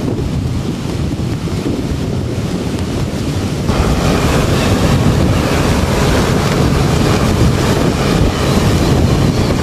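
Wind buffeting the microphone over the wash of ocean surf; about four seconds in the hiss grows louder and brighter.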